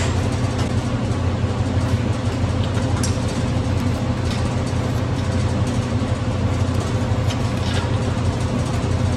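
Steady low mechanical hum of a running motor, with a few faint light ticks.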